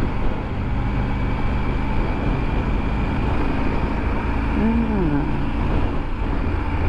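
Triumph Tiger 900 GT's three-cylinder engine running steadily with road noise as the motorcycle is ridden. About two-thirds of the way in, a short pitched sound rises and then falls.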